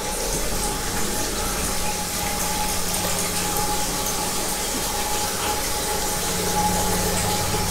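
Steady hiss of running water in a tiled washroom, with a constant low hum and a faint high whistle underneath.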